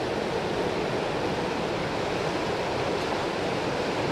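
The Lehigh River in flood, swollen by heavy rain, rushing fast and rapid past the bank: a steady, even sound of fast-running water.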